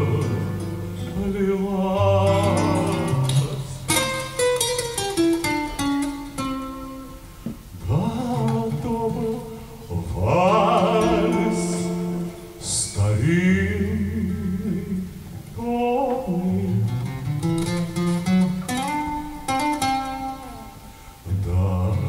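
A man singing a song while accompanying himself on acoustic guitar, the sung melody carried over plucked and strummed chords.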